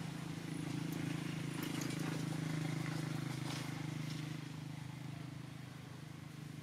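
A low, steady engine hum with a fine pulse, growing a little louder and then fading, with a few faint ticks over it.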